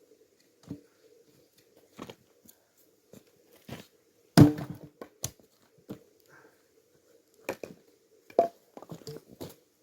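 Knocks and thuds of chunks of firewood being split and handled. About eight separate hits, the loudest about four and a half seconds in.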